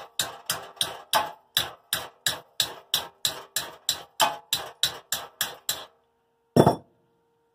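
Small hammer tapping steadily on a wrench fitted to the impeller's centre bolt, metal on metal, about three strikes a second, to shock the tight bolt loose from the engine shaft. The tapping stops near the end, followed by a single heavier thump.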